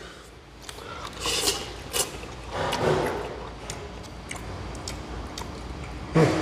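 Plastic fork scraping and tapping in a paper food tray as chili spaghetti is twirled and eaten: scattered light clicks and rustles, with a brief voice sound near the end.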